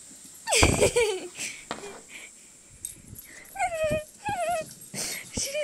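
Siberian husky puppy crying out while playing: a loud yelp about half a second in, then several short, high-pitched, wavering whines about three and a half seconds in and again near the end.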